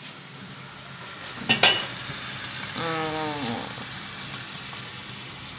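Food sizzling in a frying pan, with a sharp clink of a utensil against the pan about a second and a half in and a short pitched sound about three seconds in.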